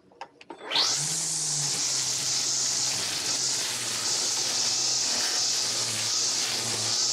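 Stihl FSA135R battery string trimmer spinning up with a quick rising whine a little under a second in, then running steadily with a dense high whir as it cuts tall weeds.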